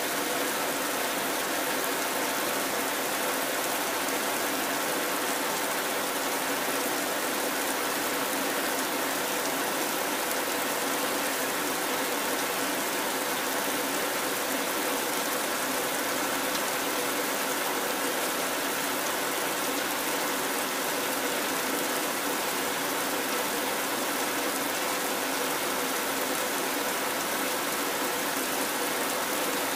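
Heavy rain falling: a steady, even hiss that does not change or break.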